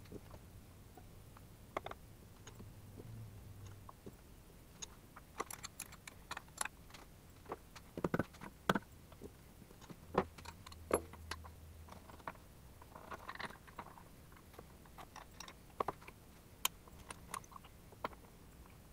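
Scattered metal clinks and knocks of tools and clamping parts being handled on a milling machine table, with the mill's motor not running. A faint low hum comes and goes twice.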